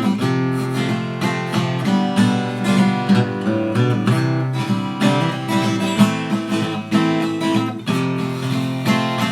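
Newly built OM acoustic guitar with a spruce top and mahogany back and sides being played, a continuous run of plucked notes and strummed chords ringing on. Its tone is mellow yet bright.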